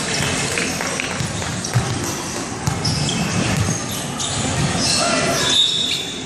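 Basketball bouncing on a wooden indoor court during play, with players' and spectators' voices echoing in a large sports hall.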